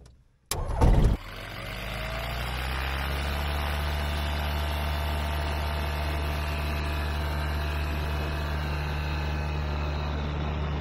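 Light-sport aircraft's piston engine starting: a short loud burst about half a second in as it cranks and catches, then running steadily at idle, growing a little louder over the next couple of seconds before holding level.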